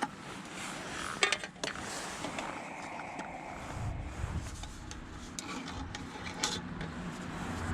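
Rubbing and handling noises, with a few sharp clicks about a second in and another near the end.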